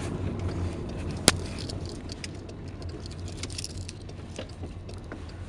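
Victorinox Swiss Army knife being handled, with small metallic ticks and one sharp click about a second in as its blades are worked. Underneath is the steady low rumble of a car cabin on the move.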